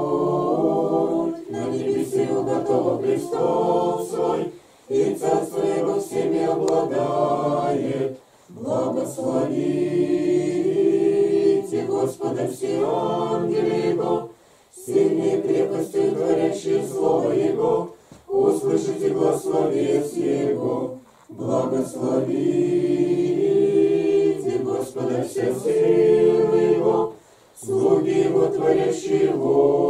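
A small congregation of men and women singing Orthodox church chant a cappella, in phrases several seconds long separated by brief pauses for breath.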